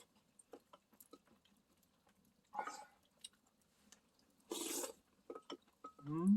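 A person eating stew: faint chewing and small clicks, with two short breathy slurping sounds, and a brief hummed vocal sound rising in pitch near the end.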